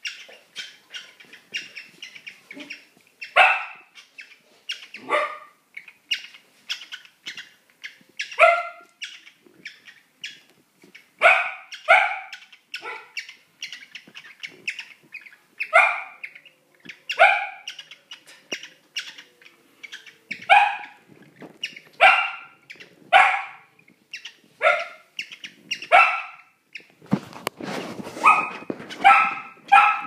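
A pair of cockatiels calling while mating: loud, harsh downward-sweeping calls repeated about every second or so, with softer quick chirps between them. A rustling noise comes in near the end.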